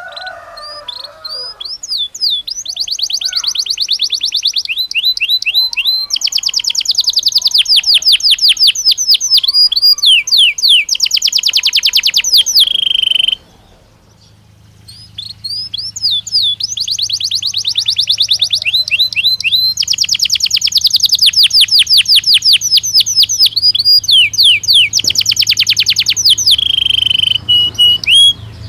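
Belgian canary singing: two long bouts of fast, high trills and rolled notes, broken by a short pause about halfway through.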